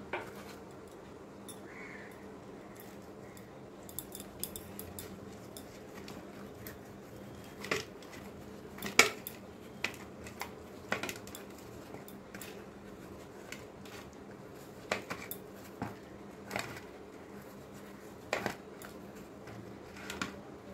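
Irregular clicks and taps of a hand and fingers working against a plate while rubbing salt and turmeric into pointed gourds, over a faint steady hum.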